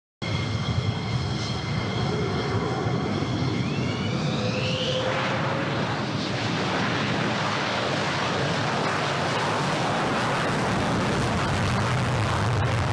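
The twin Pratt & Whitney F100 turbofans of a McDonnell Douglas F-15E Strike Eagle running as it taxis. It starts as a high, many-toned jet whine, two of the tones rising slightly about four to five seconds in, and then gives way to a steady rushing jet noise.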